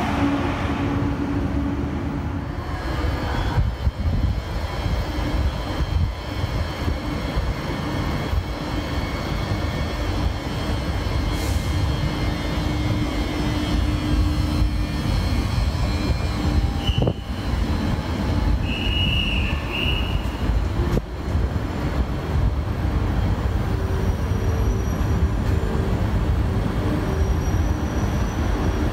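A train running at the station: a steady low rumble under a low hum, with two short high squeals a little past halfway.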